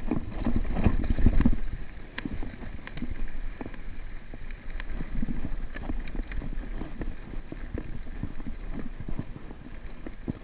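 Mountain bike riding fast over a rough dirt singletrack: tyre noise and frequent small clicks and rattles from the bike over bumps, with wind buffeting the microphone, heaviest in the first couple of seconds.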